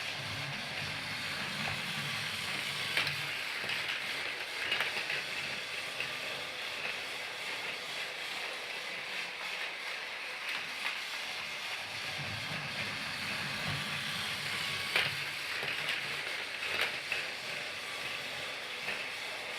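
A Thomas the Tank Engine toy train running along its track, giving a steady mechanical whirr with scattered clicks. A low rumble swells twice.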